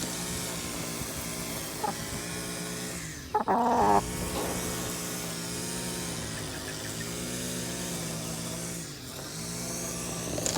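A motor running steadily, its pitch dipping briefly twice, with a short louder sound about three and a half seconds in.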